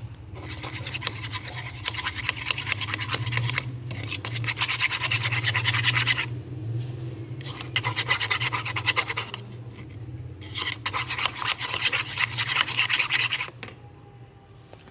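Stirrer scraping around the inside of a yogurt tub while mixing glue slime base, in four long bouts of rapid scraping separated by short pauses.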